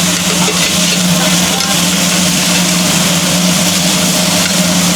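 A steady motor-like hum under a loud, even rushing noise.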